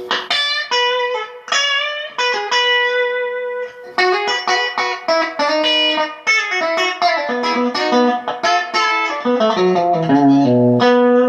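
Fender Custom Shop Telecaster with Texas Special single-coil pickups, played through an amp: a melodic phrase of picked single notes and chords, each note ringing out, with brief pauses between phrases.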